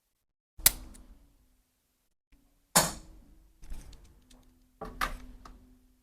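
Sharp cracks and thuds during a chiropractic adjustment: four hits over about four seconds, each tailing off over about a second.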